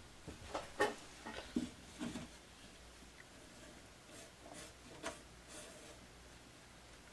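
Light clicks, taps and scrapes of fingers handling and pressing on glued ceramic greenware. There are several sharp ones in the first two seconds and a few softer ones around four to five seconds in.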